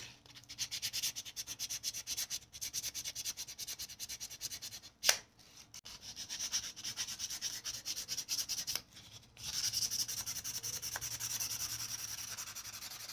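Sandpaper rubbed by hand back and forth along a steel knife blade, quick scratchy strokes about five a second, with a few short pauses and one sharp click about five seconds in. The blade is being sanded to take off old marks and tarnish.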